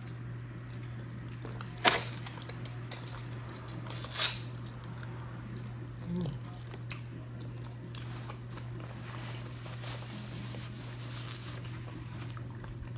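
A person eating charbroiled oysters close to the microphone: chewing and mouth noises, with a few short sharp clicks, the loudest about two seconds in and another around four seconds. A steady low hum runs underneath.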